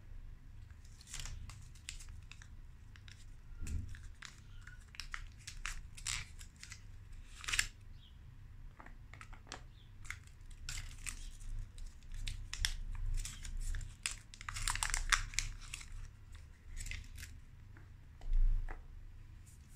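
Foil-lined chocolate bar wrappers crinkling and tearing as they are peeled open, in many short crackles over a low steady hum, with a soft thud near the end.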